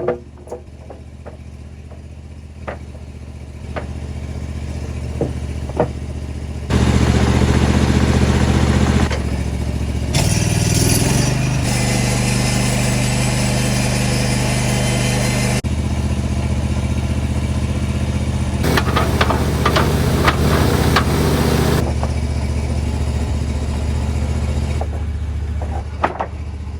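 Norwood HD36 portable band sawmill's gasoline engine running steadily. It gets much louder about seven seconds in, with its pitch dropping under load as the band blade saws along a 2x12 board. A second, shorter cutting stretch follows about twenty seconds in.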